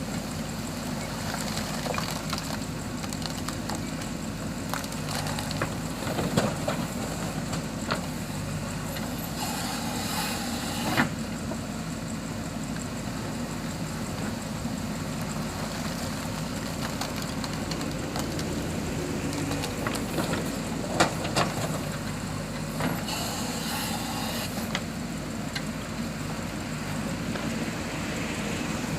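JCB 3DX backhoe loader's diesel engine running steadily under work, with a few sharp clunks and two short spells of rattling noise as the machine handles the load.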